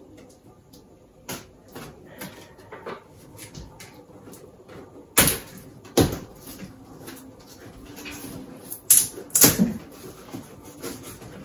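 Cardboard box being opened by hand: the top flaps are pulled and prised apart with scraping and rustling of the cardboard, broken by several sharp snaps and knocks, the loudest about five, six and nine seconds in.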